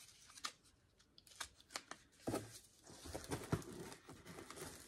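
Quiet rustling and crinkling of packaging with a few small clicks and taps as items are handled in a box, the rustling growing denser in the second half.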